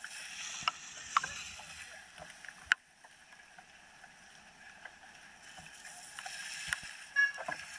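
Mountain bike tyres rolling over a dirt and leaf-covered trail, a steady rushing noise that fades and then grows louder over the last couple of seconds as a rider approaches, with scattered sharp clicks.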